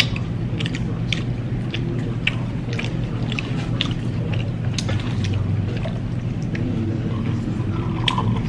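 Two people chewing French fries close to the microphone: soft crunches and wet mouth clicks, about one or two a second, over a steady low hum.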